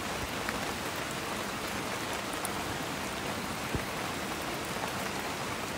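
Steady, even rush of flowing water, like a rocky stream running close by.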